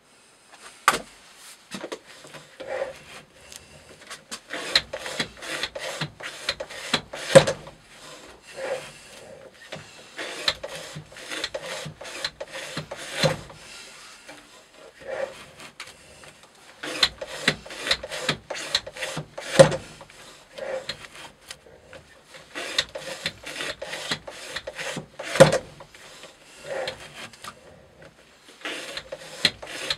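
Spyderco Para Military 2's Maxamet blade slicing through natural-fibre rope on a weighted cutting-test rig: a run of short rasping cuts in groups. A few sharper knocks stand out, the loudest about 25 seconds in.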